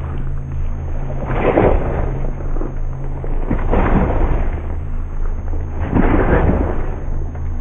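Three heavy booms, one about every two seconds, each trailing off in a rumble, over a steady low hum.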